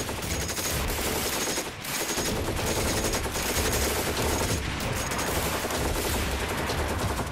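Battle sound effect of massed gunfire: machine guns and rifles firing rapidly and without pause, with a short dip about two seconds in.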